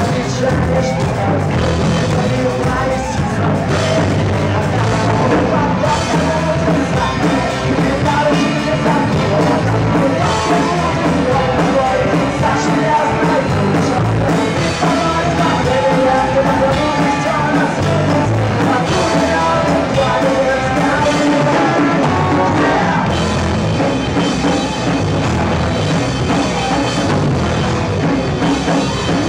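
Live rock band playing loud and steady, with sung vocals over drums and electric guitars.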